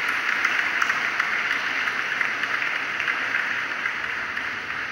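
Audience applause, a steady dense clapping that eases slightly near the end.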